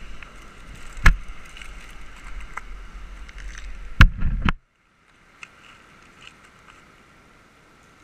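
Wind buffeting the microphone over the wash of surf on rocks, with two sharp knocks, about a second in and about four seconds in. Just after the second knock the wind rumble cuts off suddenly, leaving only faint sea noise.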